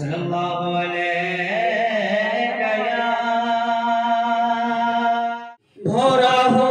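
A male voice singing a naat, holding one long, steady note for about five seconds before it breaks off; a louder voice comes in just after, near the end.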